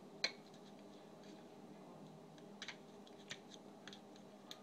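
Plastic parts of a small, cheap transforming robot jet toy clicking and tapping as they are handled and moved into place: one sharp click about a quarter second in, then several lighter clicks in the second half, over a faint low hum.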